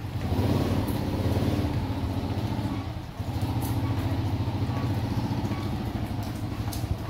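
Small motorcycle engine running steadily. It dips briefly about three seconds in, then picks up again.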